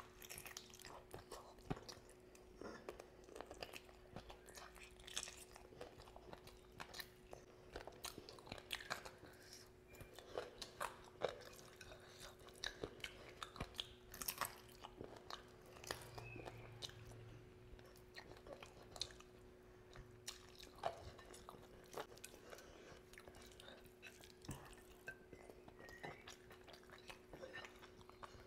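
Close-miked eating: a person chewing and biting curry-soaked meat eaten by hand, with irregular crunches and wet mouth clicks. A faint steady hum runs underneath.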